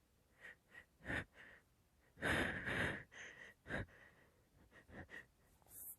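A run of sneezes and short nasal breaths. There is a short sneeze about a second in, a louder double sneeze just past two seconds, and a sharp one near four seconds, with smaller puffs of breath between.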